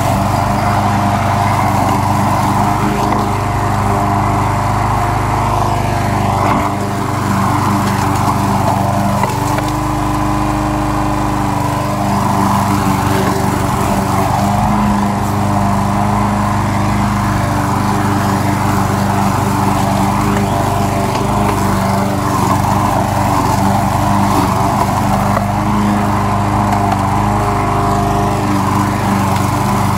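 Troy-Bilt push lawn mower's gasoline engine running steadily as the mower is pushed through grass, cutting it.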